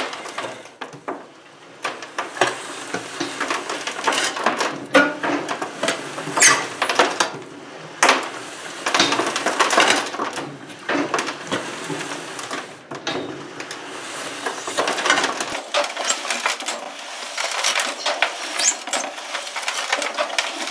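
Lumps of charcoal crunching and cracking as the steel blade of a homemade charcoal grinder cuts them, with broken pieces rattling over a steel plate bed. Many irregular crackles and clicks, thickening into louder clusters every second or two.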